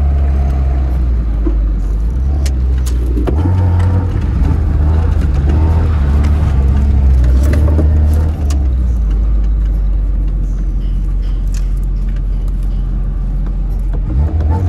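Tofaş Şahin's four-cylinder engine running through an aftermarket exhaust as the car is driven, its note stepping up a few seconds in, dropping back about halfway and rising again near the end. A few short sharp cracks sound here and there.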